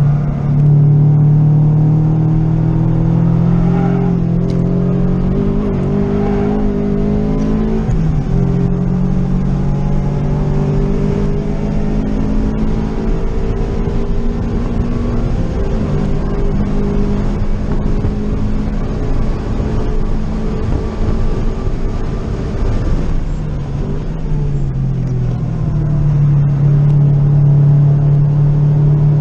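2014 Scion FR-S's naturally aspirated 2.0-litre flat-four, fitted with an aftermarket header and Tomei titanium exhaust, pulling hard at speed around a track, heard from inside the cabin. The engine note slides up and down with the revs, breaking about eight seconds in and again near sixteen, easing off around twenty-three seconds and then climbing again.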